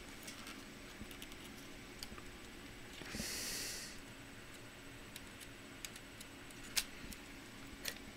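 Scattered light clicks and taps of small laptop parts being handled during disassembly, with a brief hiss-like scrape about three seconds in and a couple of sharper clicks near the end.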